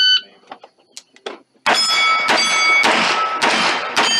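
A shot timer's electronic start beep, then about one and a half seconds later a quick string of pistol shots, roughly half a second apart. Each shot is followed by steel target plates ringing as they are hit.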